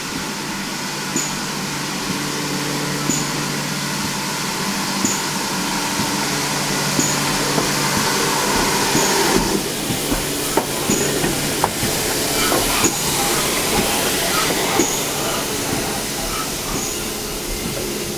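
GWR 5552, a small prairie 2-6-2 tank steam locomotive, running past with a steady hiss of steam, followed by its coaches' wheels clicking and knocking over the rail joints as they roll by, loudest about ten to fifteen seconds in.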